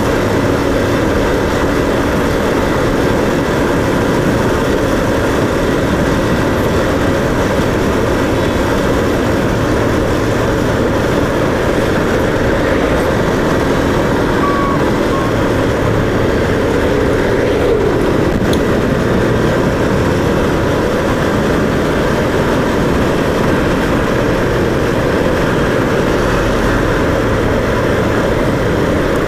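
Steady rush of wind and road noise from a vehicle travelling along a road, loud on the microphone and unbroken throughout.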